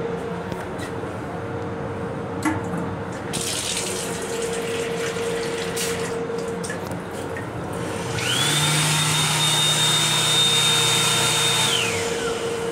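Sink faucet in an M7 railcar restroom running into the small basin for a few seconds, then the built-in hand dryer blowing for about three and a half seconds, its high whine rising as it starts and falling as it stops. A steady hum from the moving train runs underneath.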